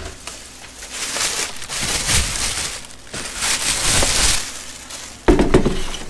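Clear plastic bag crinkling and rustling as a hard plastic carrying case is handled inside it, then a sudden knock near the end as the case is set down on a worktop.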